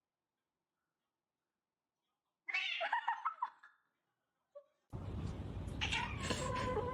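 Cat meowing and yowling after a stretch of dead silence. A short burst of meows about two and a half seconds in, then near the end a drawn-out yowl that falls in pitch over background noise.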